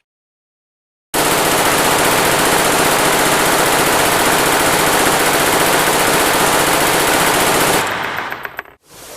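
Japanese machine gun firing one long continuous burst, starting about a second in, with rounds coming too fast to separate. The fire tapers off near the end and leaves a fading echo.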